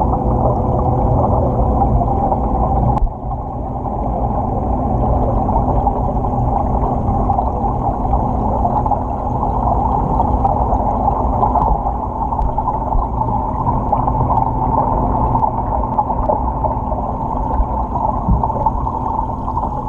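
Muffled, steady underwater rush of moving water in an aquarium touch tank, heard through a submerged GoPro in its waterproof housing. A steady hum runs underneath and stops with a click about three seconds in.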